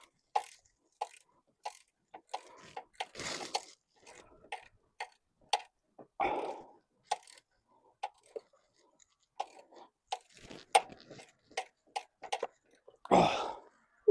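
Irregular light clicks and scrapes of metal hand tools and a bolt being handled and fiddled into place, with two longer rustling bursts about three seconds in and near the end.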